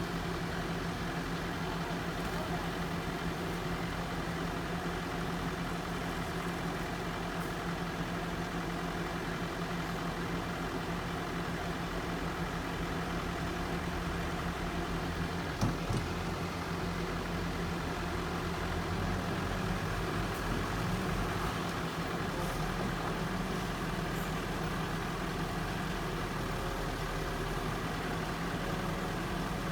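A heavy construction machine's diesel engine running steadily, with one short knock about halfway through.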